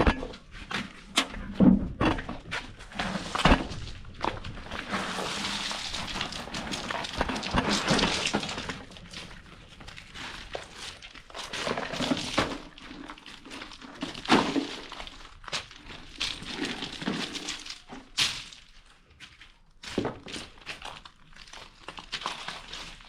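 Irregular knocks and clinks of hard objects being set down and shifted, with scraping and rustling between them.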